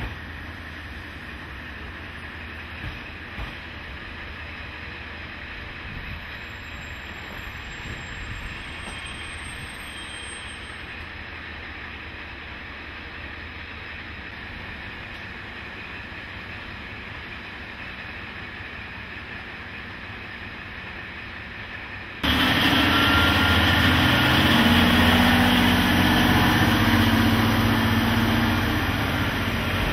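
A low steady background noise, then about 22 seconds in a sudden cut to a much louder KiHa 40 diesel railcar engine running close by, with a steady low engine note.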